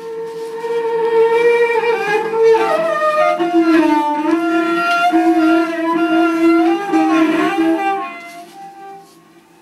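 Bowed cello playing long held notes with sliding pitch. A higher note steps down to a lower one partway through, and the sound fades out near the end.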